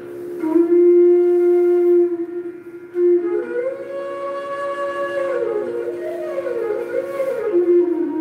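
Odissi dance music: a flute plays long held notes and a slow melody with sliding ornaments over a steady drone, with a strong swell about half a second in.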